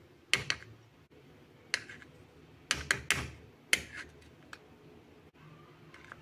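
A series of sharp clicks and knocks at irregular intervals, about eight in the first four seconds, some in quick pairs, then they stop.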